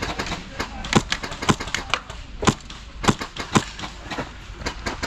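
Airsoft gunfire: scattered sharp single shots cracking at an irregular pace, several of them loud and close.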